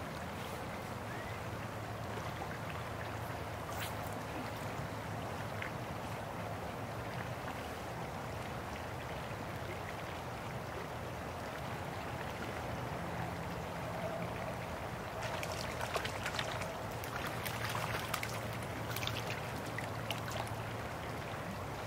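Creek water flowing steadily. A few short sharp clicks come in the second half.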